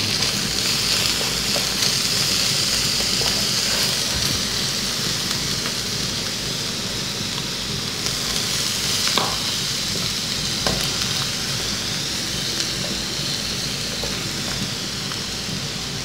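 Diced charque (dried salted beef) sizzling steadily in hot coconut oil in a frying pan, with chopped garlic and onion just added. A silicone spatula stirs it, with a couple of short knocks on the pan about two-thirds of the way through.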